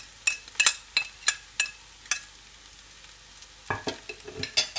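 A plastic scoop tapped against the rim of a metal cooking pot to knock spices off it: sharp, ringing clicks about three a second that stop about two seconds in. Near the end come a few duller knocks and scrapes.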